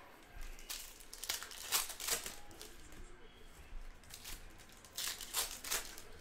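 A trading-card pack wrapper being torn open and handled, crinkling in several short bursts.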